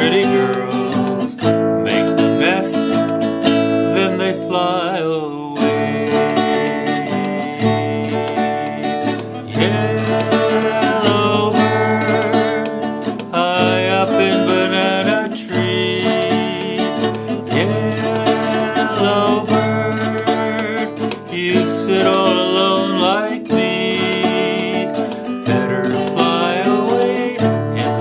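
Music led by a strummed acoustic guitar, playing steadily.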